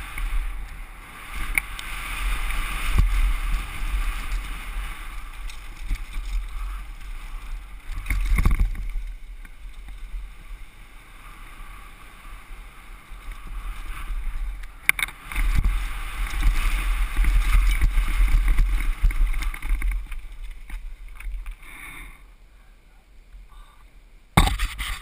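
Wind buffeting a helmet camera's microphone while riding a downhill mountain bike fast on a dirt trail, with tyre and bike rattle over the ground and a few sharp knocks from bumps. The noise eases off near the end as the bike slows, then a brief loud noise just before the end.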